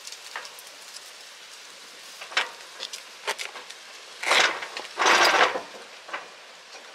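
New RV awning fabric rustling and scraping as its edge is forced along the awning rail slot, a tight fit because the fabric is thicker than the original. Scattered light clicks, then two louder swishes about four and five seconds in.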